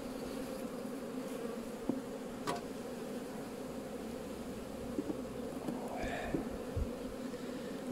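Honeybee colony humming steadily from an opened hive, with a few faint clicks mixed in.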